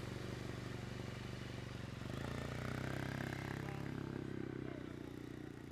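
Motorcycle engine idling with a rapid firing beat, then revving up about two seconds in and easing back down.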